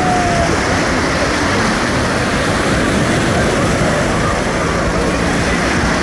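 Steady rushing noise of wind buffeting the microphone over the sound of sea surf.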